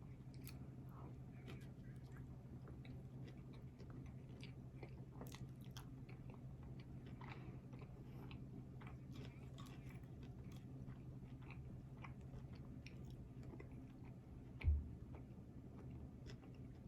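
Close-up sounds of a person chewing and biting food, with many small mouth clicks throughout, over a steady low hum. Near the end there is a single low thump.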